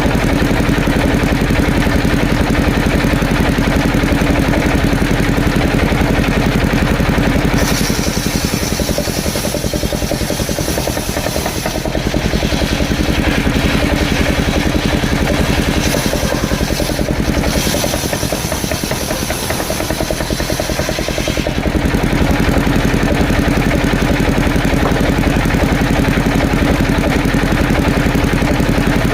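Engine-driven wood saw running steadily. From about 8 to 22 seconds in, a higher hiss joins the engine note before the engine runs on alone.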